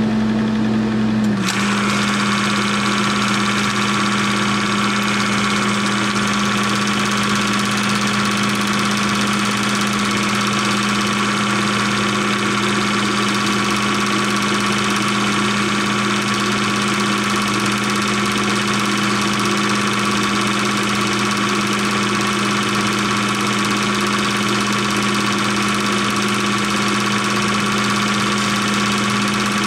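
16mm film projector running: a loud, steady mechanical hum of constant pitch, with a slight shift about a second and a half in.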